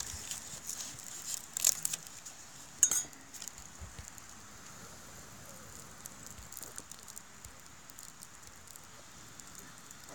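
Dying campfire's glowing embers crackling and ticking, with two sharp pops about two and three seconds in.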